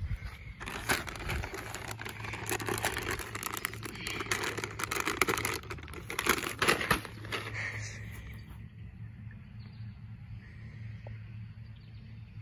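Plastic bag of potting soil crinkling and crackling as it is pulled and tugged at in an attempt to tear it open, for about seven seconds; quieter afterwards.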